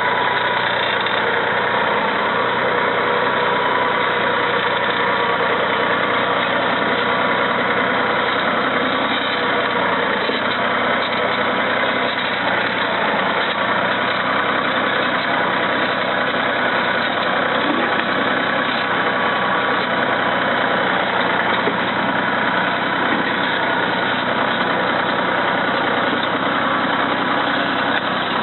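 Tractor engine running steadily, with no change in speed.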